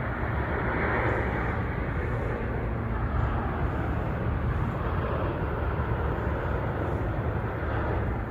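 Airbus A350-900 airliner's Rolls-Royce Trent XWB turbofans heard on its landing approach: a steady jet rumble and rushing noise, heaviest in the low end.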